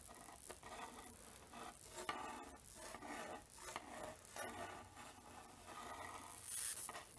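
Faint, uneven hissing and rasping from a screwdriver used as a positive high-voltage probe, held over sawdust.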